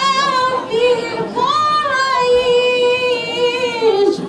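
A woman singing long, drawn-out notes that waver slightly in pitch.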